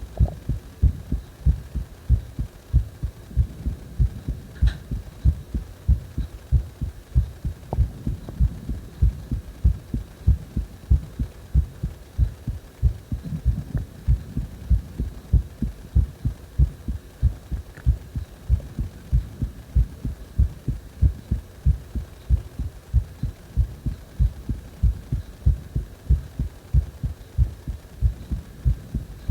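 Heartbeat heard through the chest: a steady, regular run of low thumps, with breathing noise strongly mixed in underneath.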